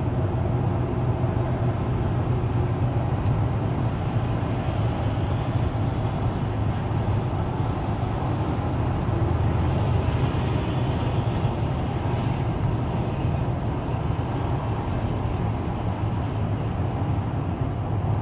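Steady road and engine noise inside a car's cabin at highway speed: a continuous low rumble with tyre hiss. A single brief click sounds about three seconds in.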